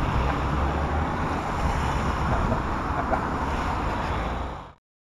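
Wind buffeting the camera microphone: a steady, loud rumbling rush. It cuts off suddenly near the end.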